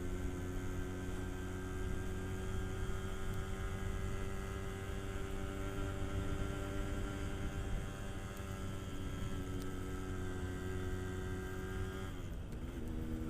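Yamaha RX-King's two-stroke single-cylinder engine running at a steady cruise while being ridden. About a second before the end the note dips, then settles at a new steady pitch.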